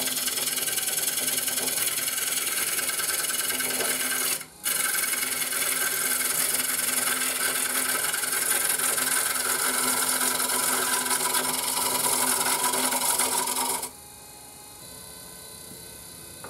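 Lathe gouge cutting a spinning spalted maple bowl blank: a steady, loud rasping hiss of wood being sheared into shavings over the lathe's low motor hum, with a brief break about four and a half seconds in. It cuts off suddenly near the end, leaving a much quieter steady hum.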